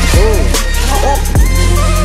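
Background hip hop music with heavy sliding bass kicks and a synth melody.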